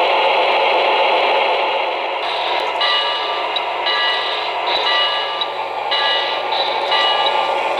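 O-gauge model trains running on three-rail track with a steady rolling noise. About two seconds in, a model locomotive's onboard sound system begins sounding a multi-note horn in a series of short blasts over a low electrical hum.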